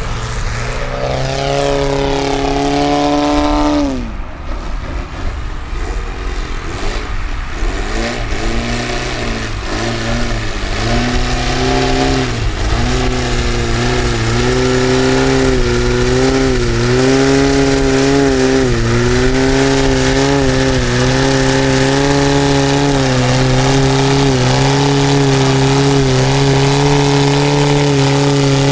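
Valach/Fiala 280 B4 petrol engine of a 50% scale Piper Clipped Wing Cub RC model, running at high power with its pitch rising, then throttled back sharply about four seconds in. It opens up again some seconds later and holds a steady, loud high-power note with small wavers in pitch as the plane hangs on its propeller.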